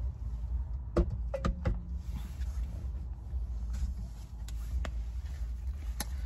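Low steady rumble inside a parked car, with a few sharp clicks and knocks from a drink can and other things being handled, the loudest about a second in.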